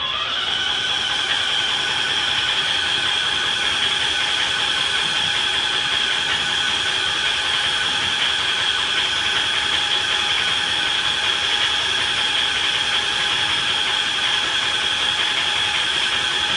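Spray lining robot spraying coating inside a fiberglass duct-board air duct: a steady hiss with a high-pitched whine held on one pitch.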